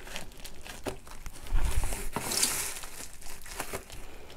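Bubble wrap and packing tape crinkling and rustling as a parcel's wrapping is cut along with scissors and pulled open, with scattered small clicks and a louder stretch around the middle.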